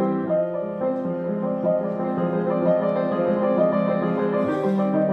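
Grand piano playing a waltz, held chords and a melody line ringing together.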